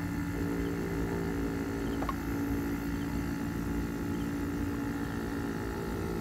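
Window-type air conditioner running with a steady, even hum from its compressor and fan, its overload protector and dual run capacitor newly replaced.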